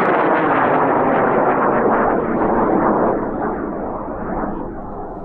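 AeroTech N3300R high-power rocket motor firing at liftoff: a loud, steady rush of noise that fades from about three seconds in.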